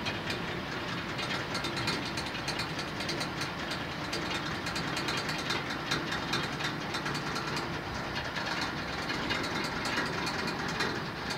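Steady machinery running, with rapid, irregular clicking and clattering throughout.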